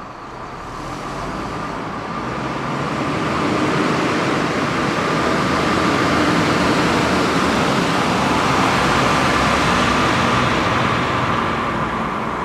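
Steady machine noise with a faint hum running through it, growing louder over the first few seconds and easing off near the end.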